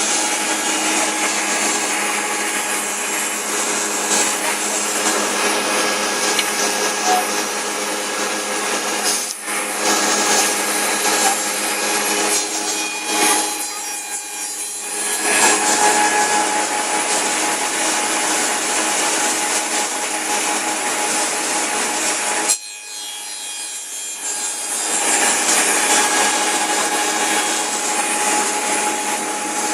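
Two-head wood cutting and milling machine running, its saw and cutter heads cutting wood over a steady motor hum. The cutting noise dips briefly about nine seconds in and again around fourteen seconds, then drops off for a couple of seconds after twenty-two seconds before the cutting picks up again.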